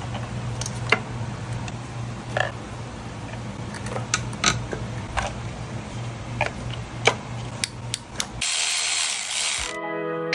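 Scattered light clicks and knocks of hand tools and parts as ignition coils are refitted onto a motorcycle engine, over a steady low hum. Near the end comes a brief hiss of about a second, and then the sound cuts off.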